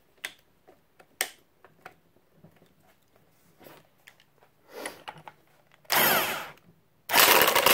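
Scattered clicks and knocks of metal tools being handled, then an impact wrench on the screw of a gear puller pulling a Model T Ford transmission gear: a short burst about six seconds in, then running loudly and continuously from about seven seconds on.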